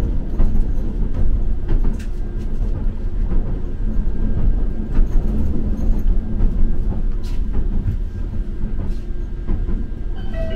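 Light-rail tram running along its line, heard from inside the car: a steady low rumble of wheels on rails with occasional clicks.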